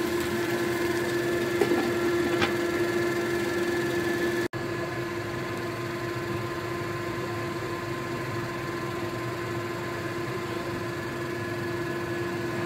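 Steady machine hum with a constant tone, with two light clicks in the first few seconds; it breaks off for an instant about a third of the way in and carries on unchanged.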